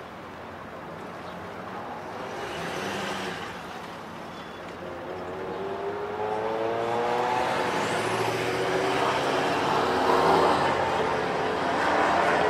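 Car engine accelerating along the street, its note rising steadily for several seconds and growing louder toward the end, over general street noise.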